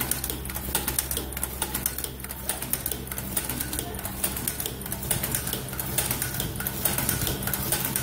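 Automatic nylon zipper slider mounting machine running: a rapid, irregular clatter of mechanical clicks over a steady low hum.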